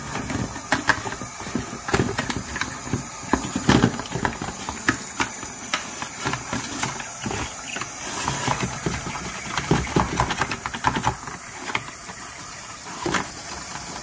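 Toothbrush scrubbing a plastic washing machine detergent drawer, with frequent irregular clicks and knocks of the brush and drawer in a stainless steel sink. Under it, the steady hiss of a running hot tap.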